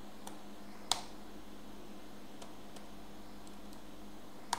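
A few isolated computer keyboard key presses, the sharpest about a second in and another near the end, over a steady faint hum.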